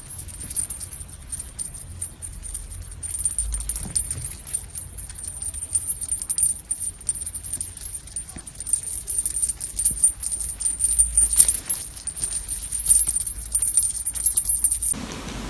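Small bell jingling and rattling irregularly as a feather wand cat toy is jerked about.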